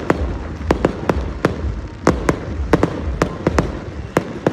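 Aerial firework shells bursting in a rapid, uneven string of sharp bangs, about two or three a second, over a continuous low rumble.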